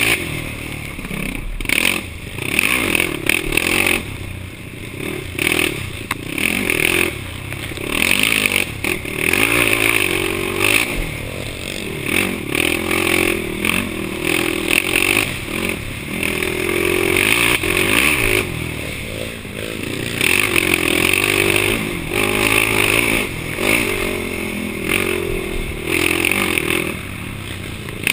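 Yamaha YFZ450 single-cylinder four-stroke ATV engine heard through a helmet camera, revving up and dropping back over and over as the throttle is worked. Short knocks and rattles come through throughout.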